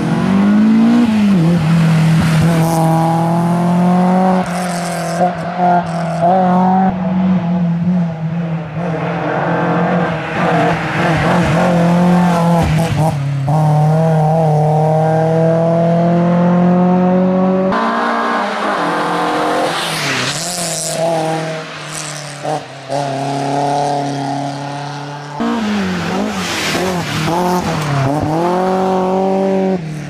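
BMW E30 318iS Group A rally car's four-cylinder engine revving hard under load. Its pitch climbs and drops repeatedly through gear changes and lifts, and the sound jumps abruptly twice.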